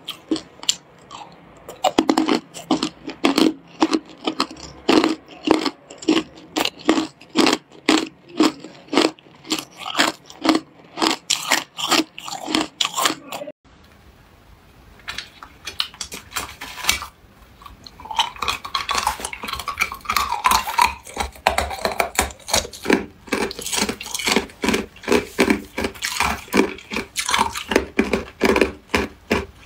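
Hard clear ice being bitten and chewed close to the microphone, a rapid run of loud crunches. The crunching breaks off about halfway through for a few quieter seconds, then starts again.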